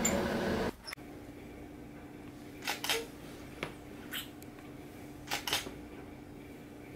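A fuller sound bed cuts off abruptly under a second in, leaving quiet room tone with a steady low hum. Half a dozen faint, short clicks or smacks come in pairs and singly through the middle.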